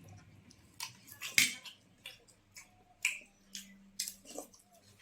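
Close-up eating sounds of chole puri: an irregular string of short, sharp mouth smacks and clicks, the loudest about one and a half seconds in.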